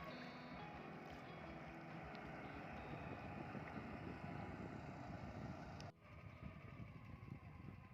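Boat motor running steadily on the river, with water and wind noise; the sound changes abruptly about six seconds in.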